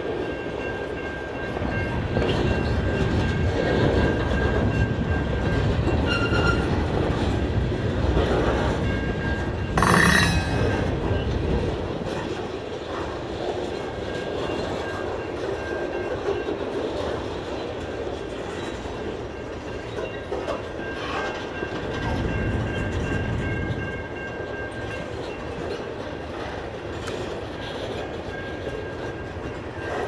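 Freight cars of a passing train rolling by: a steady rumble and clatter of wheels on the rails, heavier in the first part, with one sharp bang about ten seconds in.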